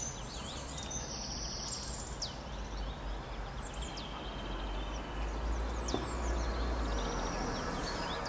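Small birds chirping and calling over and over, many short high notes and quick downward sweeps, above a steady low rumble and a faint hiss.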